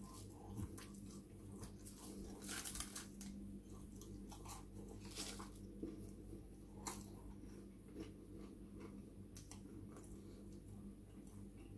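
Faint chewing and mouth sounds as chips are eaten by hand, with scattered short crackles of paper and foil wrapping being touched, over a faint steady low hum.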